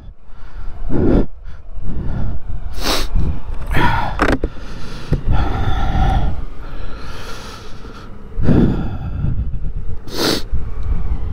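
Wind rushing and buffeting over the microphone of a camera on a moving motorcycle, a loud rumble with several sharper gusts, the strongest about 3 and 10 seconds in.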